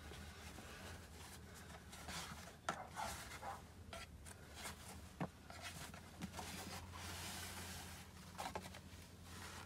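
Faint rustling and handling of packaging and fabric, with a few light clicks and taps and a longer rustle near the end, over a low steady hum.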